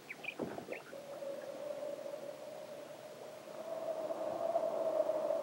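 A few faint brief sounds, then a steady held drone tone comes in about a second in and slowly grows louder.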